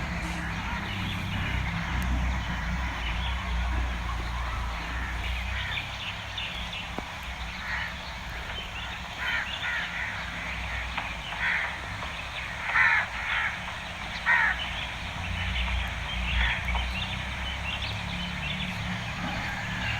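A series of short, repeated bird calls over a steady low rumble, loudest in a close pair of calls about two-thirds of the way through.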